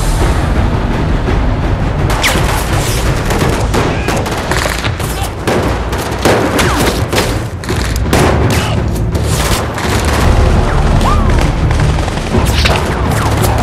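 Dense volley of gunfire from many handguns and rifles firing at once, starting about two seconds in and running as rapid overlapping shots, over a booming low rumble and a dramatic film score.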